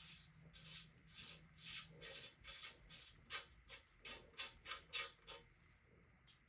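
Repeated hand scrubbing or rubbing strokes on a hard surface, about two a second, stopping about a second before the end.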